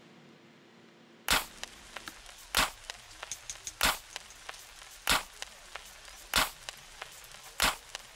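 Faint room hum, then about a second in a percussive beat begins: a sharp hit about every second and a quarter, with lighter ticks between.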